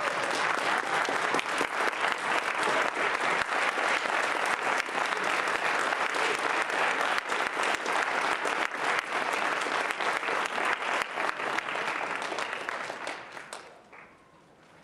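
Audience applauding, a dense patter of many hands clapping that holds steady and then dies away about a second before the end.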